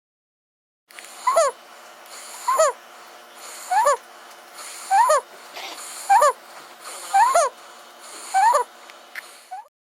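Snoring with a high whistling squeal: seven strong squeals, each rising then falling in pitch, roughly every second and a quarter, with a quieter raspy breath between them. The sound starts and stops abruptly.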